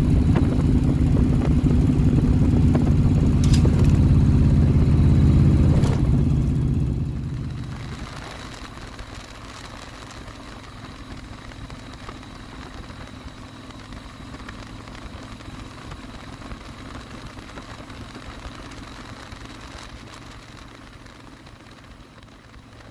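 Harley-Davidson touring motorcycle engine running at road speed under wind noise, loud for the first seven seconds or so. It then fades to a much quieter, steady hum of engine and wind.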